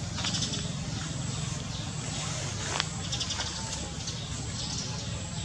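Outdoor background: a steady low rumble under a hiss, with short high trills a few times and one sharp click a little before halfway.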